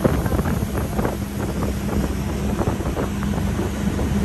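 A boat engine running steadily, with wind buffeting the microphone.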